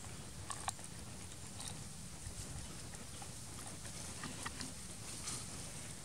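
Quiet outdoor background: a low steady rumble with a few sharp clicks scattered through it.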